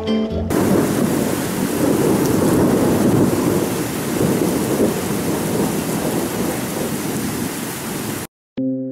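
Wind and heavy rain of a violent storm, a dense steady rushing noise. It begins as the music cuts out just after the start and stops abruptly near the end.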